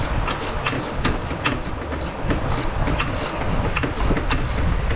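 Socket ratchet clicking in a run of clicks, about two to three a second, over a low rumble, as it backs out an oil pressure sender.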